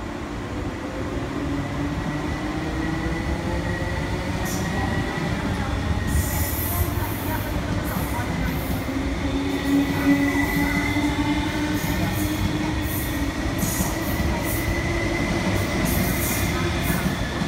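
MTR East Rail Line electric multiple unit moving along the platform: its traction motors whine in slowly gliding tones under a steady running rumble. From about four seconds in, the wheels give short, high-pitched squeals again and again.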